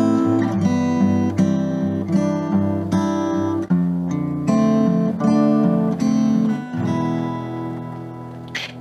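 Acoustic guitar playing a slow progression of chords, each one left to ring into the next, the sound dying away near the end.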